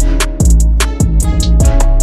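Background music with a steady beat: drums, deep bass and guitar.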